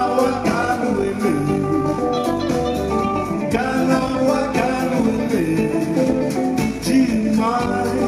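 Live band playing: electric guitars and drums with a man singing over them.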